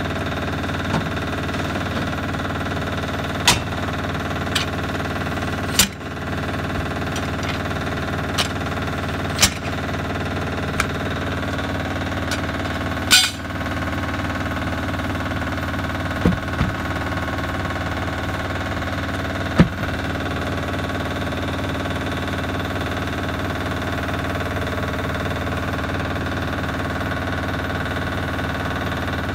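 An engine runs steadily with a constant drone. Sharp metal clanks from tire tools striking the steel wheels and pavement break in about half a dozen times, the loudest near the middle.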